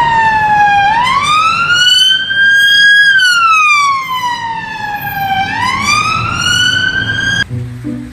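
Police car siren on a slow wail, sweeping down and up in pitch through about two full cycles, then cutting off abruptly near the end.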